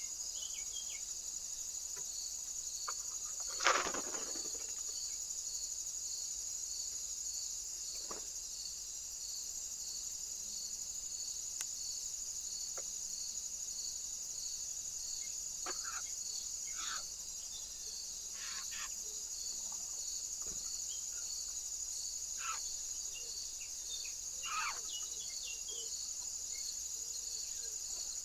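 Insects singing steadily: a continuous high-pitched buzz with a regular pulsing trill. A few short bird chirps are scattered through, with one louder burst about four seconds in.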